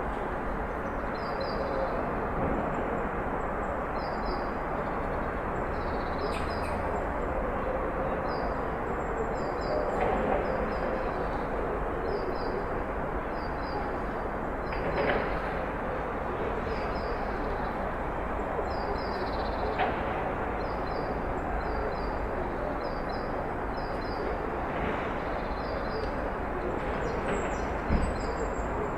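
Street ambience: a steady rumble of traffic with small birds chirping high above it in short repeated pairs. A few brief knocks stand out, one about halfway through and one near the end.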